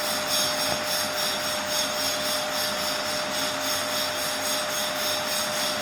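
Atomberg Renesa 1200 BLDC ceiling fan running steadily, its airflow making an even rushing hiss with a quick rhythmic flutter, and a thin steady tone alongside.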